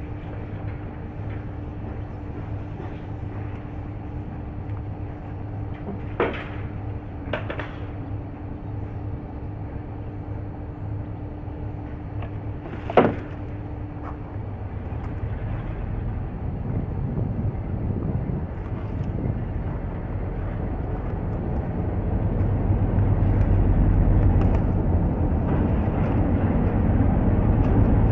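Class 47 diesel locomotive's Sulzer V12 engine running off-picture, a steady low rumble that grows louder over the last several seconds. Three sharp knocks about six, seven and thirteen seconds in.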